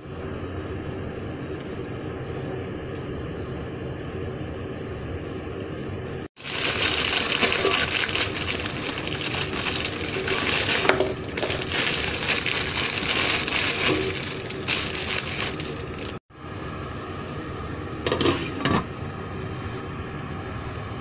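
Crinkling and rustling of a plastic instant-noodle packet being handled, a dense crackly noise lasting about ten seconds in the middle. Steadier, quieter noise comes before and after it.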